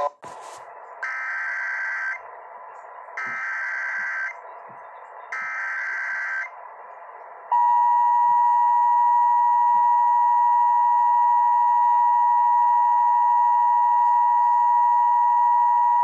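Emergency Alert System tones over broadcast radio: three short bursts of SAME digital header data, each about a second long and about two seconds apart. About seven and a half seconds in, the louder steady two-tone EAS attention signal (853 and 960 Hz) begins and holds.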